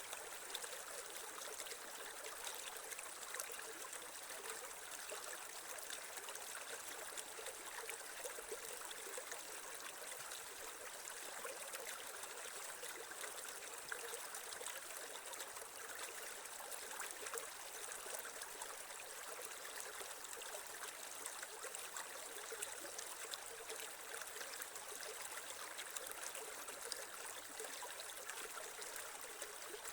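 Creek water flowing and trickling over rocks, a steady rushing with small splashes and bubbling.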